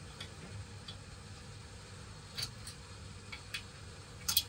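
A few short, sharp metallic clicks from a wrench working the upper nut of a car's front stabilizer (sway-bar) link, spaced unevenly. The loudest is a quick double click near the end.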